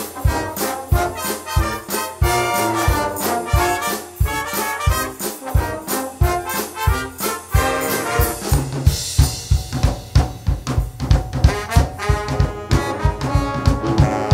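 Youth wind band playing a pop arrangement: brass (trumpets, trombones, euphoniums and tuba) over a drum kit keeping a steady beat. About halfway through, the drums switch to a busier, faster beat.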